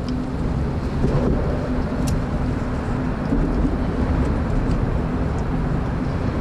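Steady rumble of road traffic crossing the bridge overhead, with a faint low hum and a single sharp click about two seconds in.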